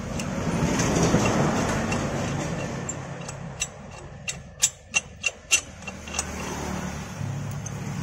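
A passing vehicle: a rushing engine noise that swells over the first second or two and fades. Then, in the middle, a quick series of sharp clicks, about seven, from the thread tap and chuck being handled at a scooter's exhaust-mount bolt hole.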